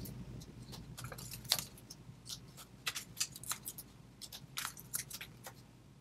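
Hands working cardstock and foam mounting tape, peeling off the tape's backing and pressing the piece down: an irregular run of small paper crinkles and clicks, the sharpest about one and a half seconds in.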